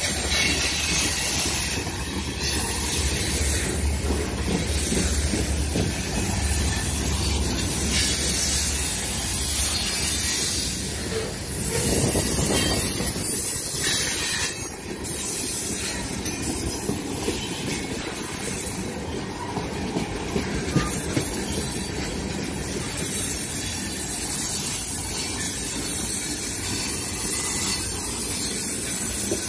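Freight train's tank cars and covered hoppers rolling past at close range: a steady rush of wheel-on-rail noise with hiss, and a low rumble that fades out after about eight seconds.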